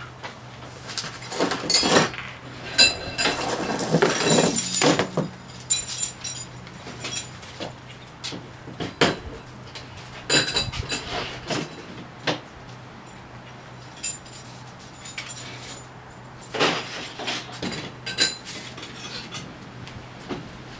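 Metal parts clinking, clanking and rattling as they are handled, in irregular bursts with short ringing tones. The busiest bursts come in the first few seconds, again about ten seconds in and near the end.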